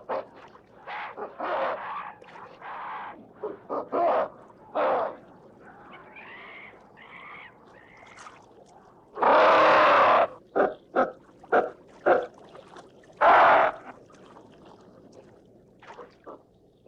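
Ape calls in chimpanzee style: a string of short barks and grunts, some wavering cries about six to eight seconds in, and two loud screams, a long one near the middle and a shorter one a few seconds later.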